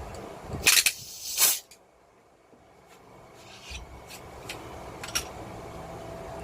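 Two short rasping scrapes, like tool work on metal, under a second apart, followed by a few light clicks.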